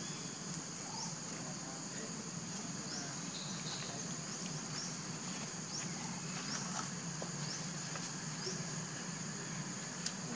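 A steady high-pitched insect drone, with short rising chirps about once a second over a low steady hum.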